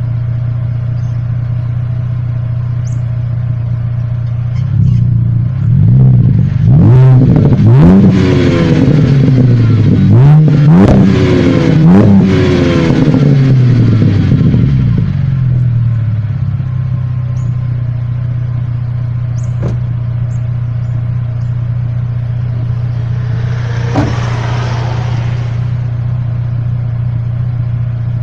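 Holden VZ Commodore's 3.6-litre V6 heard at the chrome tip of its custom 2.25-inch cat-back exhaust, which has a centre resonator. It idles steadily and is revved several times in quick succession from about five seconds in until about fifteen seconds, then settles back to idle. Near the end comes one shorter blip of the throttle.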